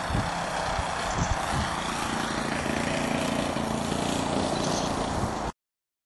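Radio-controlled AT-6 Texan model plane's motor and propeller droning steadily as it flies past, cut off suddenly about five and a half seconds in.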